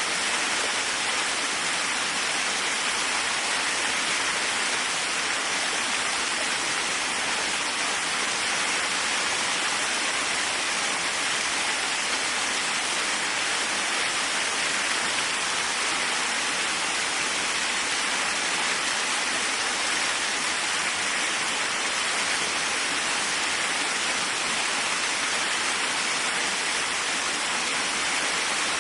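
Waterfall: water falling and splashing in a steady, even rush, strongest in the upper middle range, with no change throughout.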